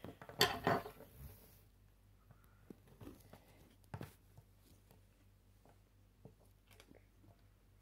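Faint handling noises of Lego parts: small plastic clicks and taps as rubber tyres are worked onto wheel rims, with a louder rustle about half a second in.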